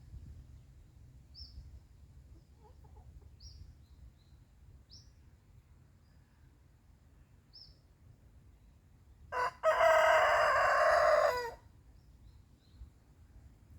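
Rooster crowing once: a single loud crow of about two seconds, starting about nine seconds in. Before it, a few faint, short, high chirps from small birds.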